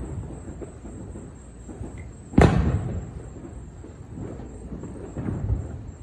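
Fireworks going off: one loud, sharp boom about two and a half seconds in that trails off over about half a second, with fainter thumps near the start and again about five seconds in.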